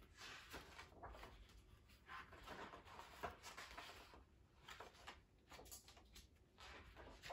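Faint rustling of paper as the pages of a hardcover picture book are turned, in several short flurries.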